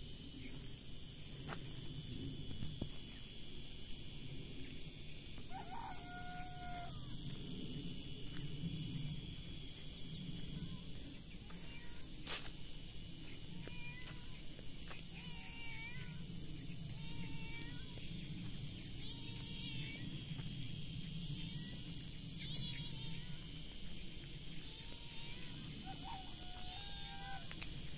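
A rooster crows about six seconds in and again near the end, each crow rising and then held for about a second. Short, repeated chirping calls from small birds fill the second half, over a steady high hiss.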